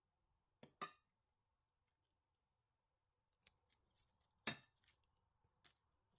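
Metal spoon clicking and tapping against a glass baking dish while soft cream is spooned in and spread: a few sharp clicks, two close together near the start, the loudest about four and a half seconds in, with near silence between.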